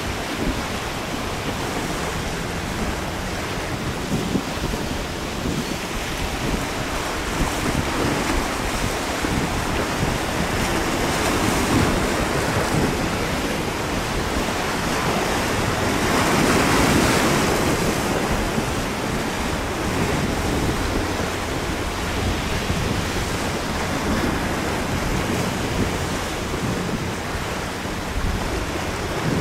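Waves breaking in rough inlet water, with wind buffeting the microphone; the surf swells loudest a little past halfway.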